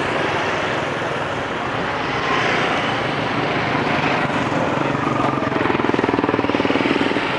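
Street traffic, mostly motorbike engines running, with one engine passing close and pulsing rapidly about two-thirds of the way through.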